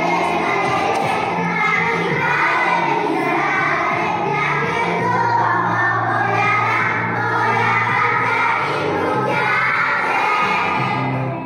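A group of preschool children singing a Polish song together, over instrumental accompaniment with a steady low bass line.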